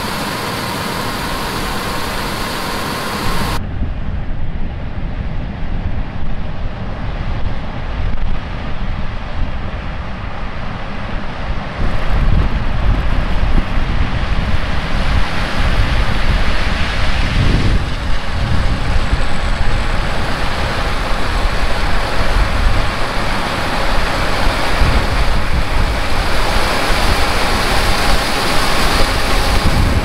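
Wind buffeting the microphone, a loud gusty rumble, over a steady running vehicle or machine sound. The sound changes abruptly about four seconds in and again about twelve seconds in, then runs on louder.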